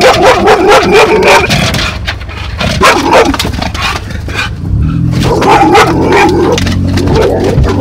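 Black Labrador mix barking loudly and excitedly inside a car, worked up over another dog outside. There is a dense run of barks for about three seconds, a short lull, then more barking.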